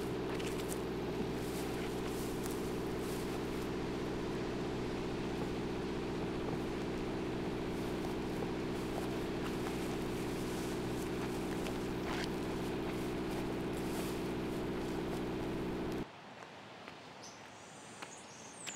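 SDMO standby generator engine running at a steady speed, a loud even low hum. It stops abruptly about three seconds before the end, leaving quieter yard ambience with a few faint clicks.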